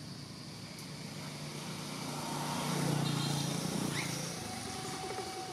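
A motor vehicle passing by: a low engine hum that swells to its loudest about halfway through and then fades away.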